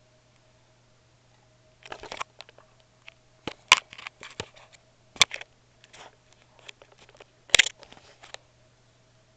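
Clicks and knocks of a clear plastic container of water being handled and set down on carpet, starting about two seconds in, with three sharp taps spaced a second or two apart, over a faint steady hum.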